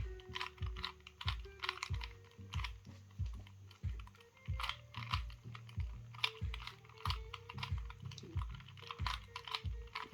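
Rubik's cube being turned quickly, its plastic layers clicking and clacking in rapid runs, over background music with a steady beat of about two thumps a second.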